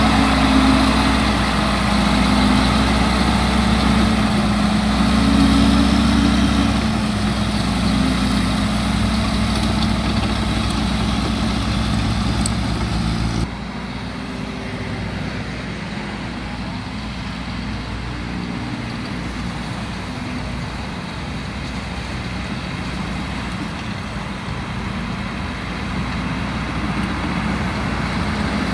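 Bagasse-pusher tractor's engine running, its pitch and loudness swelling and easing over the first half. It drops suddenly to a quieter, steadier run about halfway through, then rises slightly near the end.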